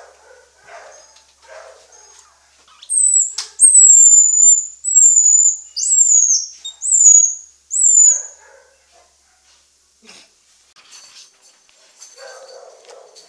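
Baby gray squirrel squealing: a run of about six loud, very high-pitched calls in quick succession, each sliding down in pitch. They start about three seconds in and stop at about eight and a half seconds.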